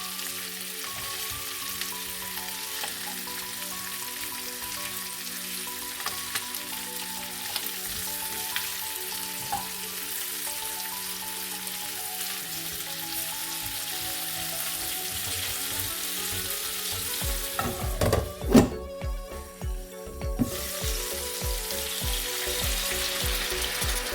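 Chicken wings sizzling as they fry in a frying pan, over steady background music. About three quarters of the way through the sizzle drops away for a couple of seconds amid a few knocks and thuds, then resumes.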